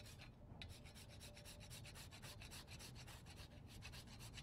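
Faint, rapid scraping as a whole spice is grated on a fine handheld grater, several quick strokes a second, dusting whipped cream.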